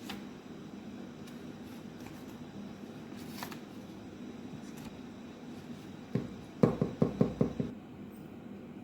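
Hands handling and folding a sheet of paper on a table, with light rustles, then a quick run of about eight low knocks or pats on the paper about six seconds in.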